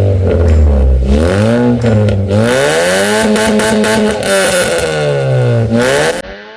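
Car engine revved repeatedly through its exhaust, the pitch climbing and falling several times, loud, with a rushing hiss over it; it cuts off suddenly near the end.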